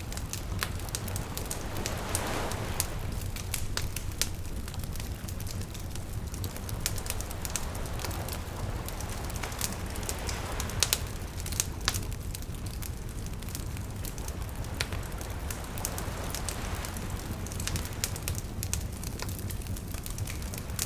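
Campfire crackling with frequent sharp pops, over small waves lapping in gentle swells every several seconds, with a steady low rumble underneath.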